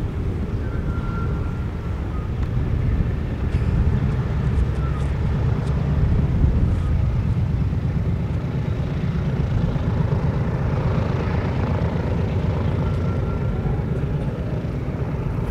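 Boeing B-17G Flying Fortress's four Wright R-1820 Cyclone nine-cylinder radial engines running together on the ground, a steady low rumble as the bomber taxis.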